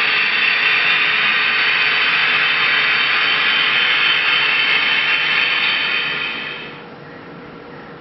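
Gas turbine locomotive sound played through the speakers of a QSI Revolution DCC sound decoder in a model Union Pacific Veranda gas turbine: a steady high whine over a rush of air. It fades away between about six and seven seconds in.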